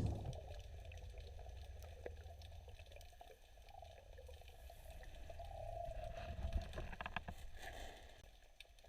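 Faint underwater water noise and bubbling, picked up by a camera in an underwater housing, with a low rumble and a few sharp clicks about seven seconds in.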